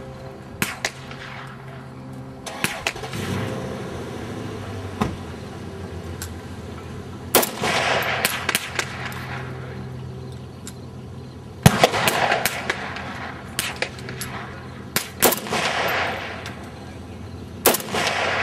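AK-103 Kalashnikov rifle firing 7.62×39mm rounds semi-automatically: more than a dozen single shots at uneven spacing, each with a sharp crack and an echoing tail. Some shots are loud and close; others are fainter.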